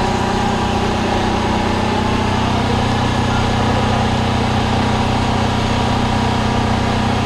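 An idling vehicle engine gives a steady, unchanging low hum, with no pops or bangs.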